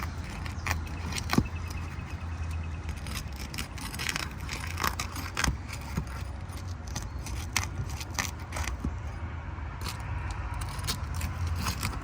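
Irregular clicking, scraping and crackling of a metal roof snake worked under asphalt shingles, prying them up and breaking their sealant strips. A steady low rumble runs underneath.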